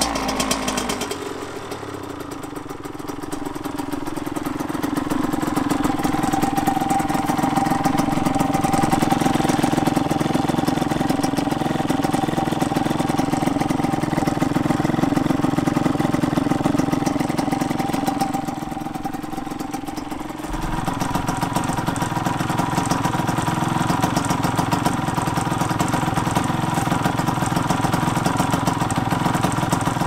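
Honda CR85 two-stroke single-cylinder engine running steadily at around idle through its stock exhaust, with slow swells in loudness and an abrupt change in tone about twenty seconds in. The engine's big-end bearing is worn out, which the owner found out later.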